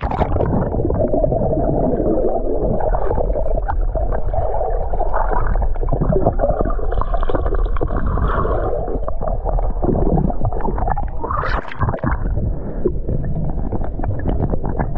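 Pool water heard from a camera held underwater: a continuous muffled rumbling and gurgling of moving water, with the high end cut away. There is one brief brighter swell about eleven and a half seconds in.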